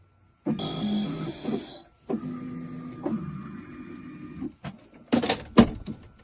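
Key-cutting machine's motor running while it cuts a brass key blank, with steady whining tones that change a couple of times. It ends with a few sharp clacks about five seconds in.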